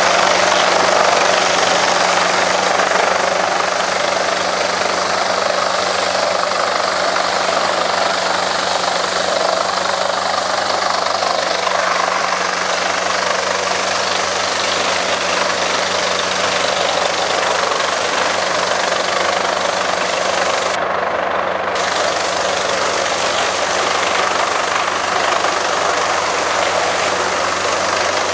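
Planalto P 180 mobile wood chipper working, a steady engine hum under a dense, even noise as wood chips are chipped and conveyed into a truck trailer.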